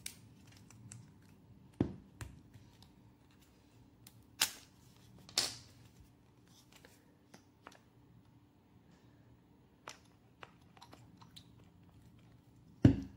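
Plastic pump-bottle dispenser being handled: scattered small clicks and handling noises as the pump head is worked. Near the end comes a louder click as the pump is pressed down to dispense gel.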